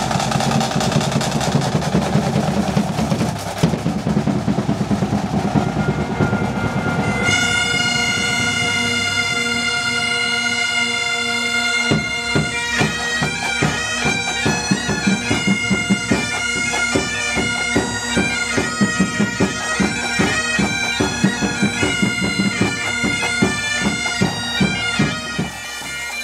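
Pipe band of Highland bagpipes with drums: drumming at first, then the bagpipe drones strike in with a steady tone about six to seven seconds in, and from about twelve seconds in the chanters play a tune over the drones with regular drum beats.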